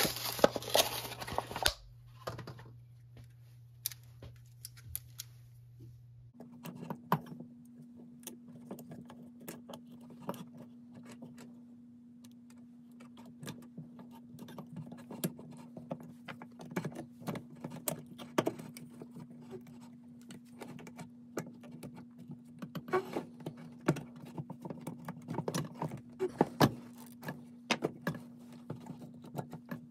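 Plastic packaging tearing and crinkling for about the first two seconds, then scattered light plastic clicks and taps as a bump-feed spool wound with trimmer line is handled and fitted into the string trimmer's head. A faint steady low hum runs underneath and steps up in pitch about six seconds in.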